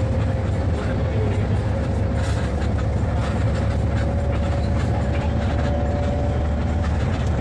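Inside a Lorena bus cruising at highway speed: a steady engine drone and road rumble, with a faint whine that rises slightly in pitch over several seconds.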